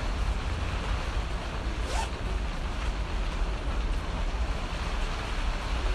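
Steady rumble and hiss of a moving vehicle's cabin, heard close on a phone microphone, with brief clicks about two and four seconds in.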